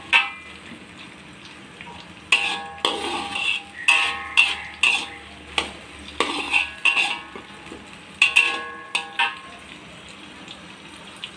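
Metal spatula scraping and clanking against a wok in about five bursts of stirring, the strokes ringing briefly, over a steady sizzle of blended onion and garlic paste frying in oil until fragrant.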